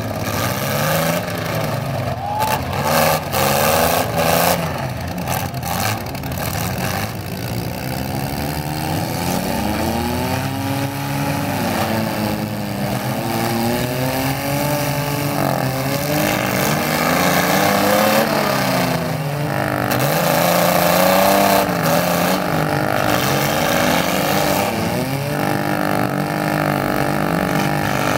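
Several compact-car engines revving up and down together in a demolition derby heat, their pitches rising and falling and overlapping, with a run of sharp bangs in the first few seconds.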